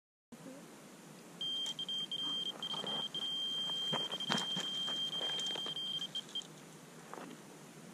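Electronic carp bite alarm sounding a steady high-pitched tone with a few brief breaks for about five seconds: the signal of a fish taking line on a run. Knocks and clicks of handling come over it.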